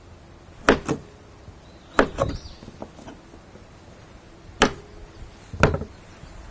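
Kitchen knife striking a cutting board as zucchini is cut into fry-sized strips. There are several sharp, irregular knocks, a few of them doubled and followed by a short ring.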